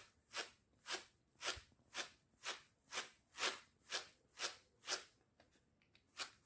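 Roasted, skinned peanuts being winnowed in a woven winnowing basket: a rhythmic rattling rush of nuts and papery skins on the weave with each shake, about two shakes a second, stopping about five seconds in.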